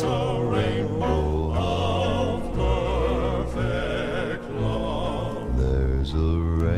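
Southern gospel male vocal quartet singing sustained chords in close harmony, with vibrato on the held notes over a deep low part.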